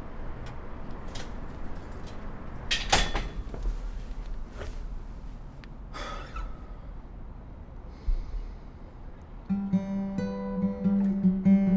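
Acoustic guitar starts playing near the end, picked notes ringing over a held low note. Before it there is a low background rumble with a few sharp knocks.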